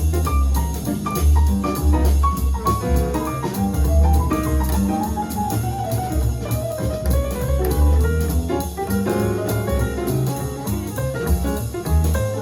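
Jazz piano trio recording playing back through Klipsch R-40PM powered bookshelf speakers: piano over a steady upright bass line and drum kit with cymbals. A falling piano run comes about four seconds in.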